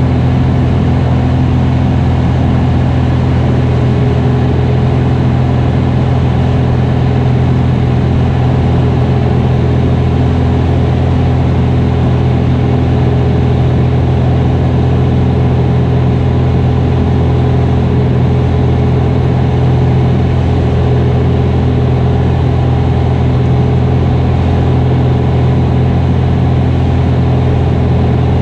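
Mooney single-engine airplane's piston engine and propeller running steadily in flight, a constant low drone heard inside the cockpit.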